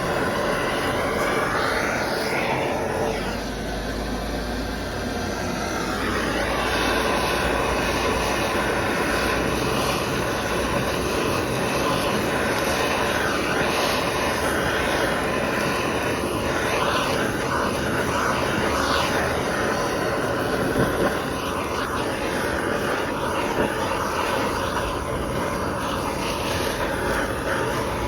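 Handheld gas blowtorch burning with a steady roaring hiss as its flame sears a steak. It eases off briefly a few seconds in, then carries on.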